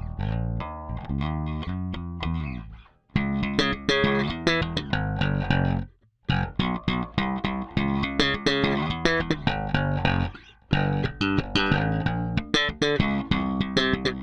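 Peavey Milestone III electric bass being played: a few held notes at first, then quicker runs of plucked notes, with the playing stopping briefly three times.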